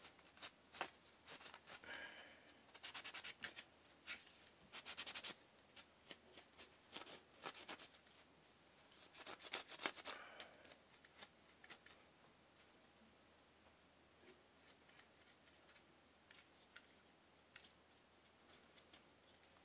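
A cloth rag wiping a Glock 17 pistol's slide and frame, in groups of faint, scratchy rubbing strokes, as gunpowder residue and oil are cleaned off. After about ten seconds it goes quieter, with only a few light ticks of handling.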